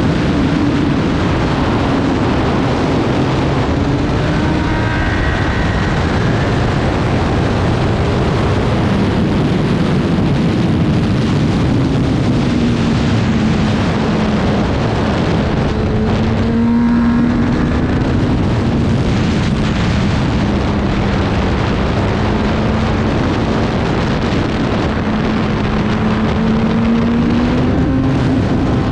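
Racing motorcycle engine running hard, its pitch rising and falling as the rider goes through the gears, with heavy wind rush over the microphone.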